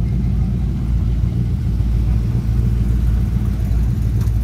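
Classic cars rolling slowly past at low speed, a lowered old Chevrolet pickup and a gold early-1960s Chevrolet, their engines giving a steady low rumble.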